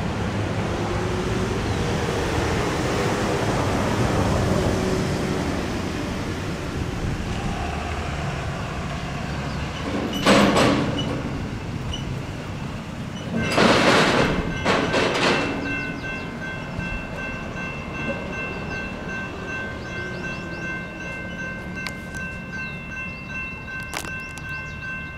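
Road traffic passes, then a little over halfway in the crossing's GS Type 2 electronic bell starts ringing steadily as the crossing signals activate, with two short loud bursts of noise around its start.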